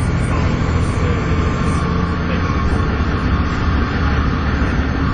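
Volvo B7TL bus's turbocharged six-cylinder diesel engine pulling hard, with the steady vacuum-cleaner-like turbo whine known as 'hoovering' over a deep engine drone.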